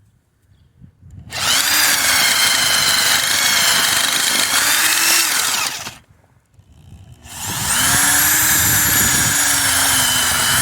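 Power drill driving an earth auger bit into the ground, run in two bursts of about four seconds each with a short stop between; the motor whine sags slightly in pitch under load as the auger bores into compact clay soil.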